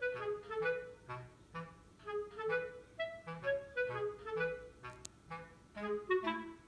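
Background music: a light melody of short, quick pitched notes over a low note roughly twice a second.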